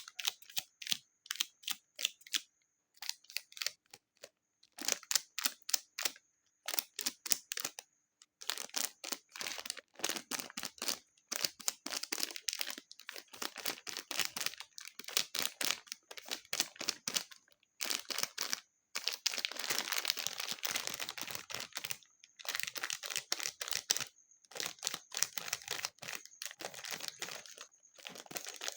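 Slime being squeezed and pressed by hand, crackling with quick runs of small pops and clicks in bursts, separated by short pauses.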